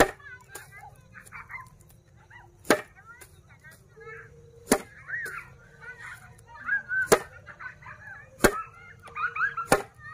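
A bundle of dried broom-grass stalks slapped down hard onto a wooden board, six sharp whacks about two seconds apart, threshing the flower heads off the stalks.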